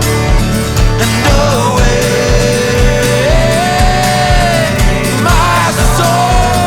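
Loud folk-rock song playing: a steady kick-drum beat under long held melody notes that slide between pitches.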